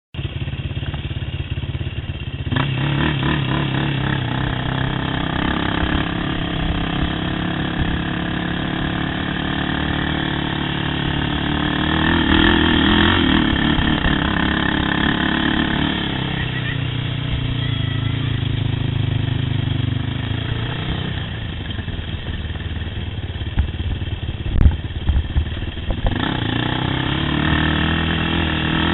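ATV engine running as a Yamaha YFZ quad is ridden, its pitch rising and falling with the throttle. A few sharp knocks come late on.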